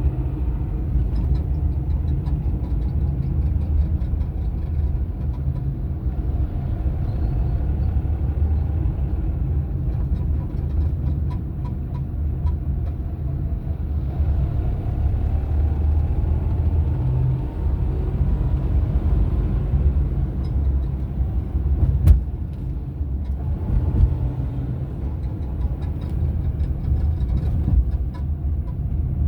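Vehicle engine running with a steady low rumble and faint ticking; the owner reports it as an abnormal engine noise. Midway a whine rises in pitch, and a sharp knock comes about three quarters of the way through.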